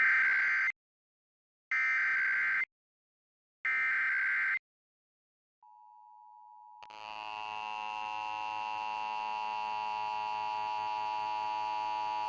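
Emergency Alert System test: three short bursts of SAME header data tones, about a second each with short gaps between them. Then a faint single tone comes in, and about seven seconds in the loud, steady EAS attention-signal tone begins and holds.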